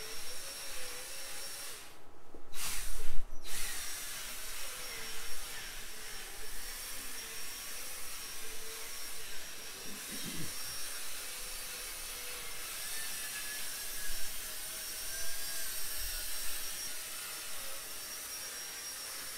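Cordless drill spinning a foam buffing pad loaded with rubbing compound against a plastic headlight lens: a steady motor whine that wavers in pitch, over the hiss of the pad on the lens. About two seconds in the drill briefly stops, and there is a sharp knock.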